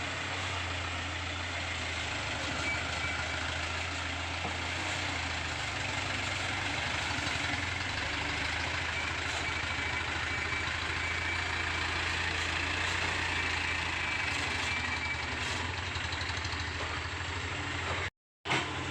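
Komatsu PC75UU excavator's diesel engine running steadily with a low drone, and a faint high whine through the middle. The sound cuts out for a moment near the end.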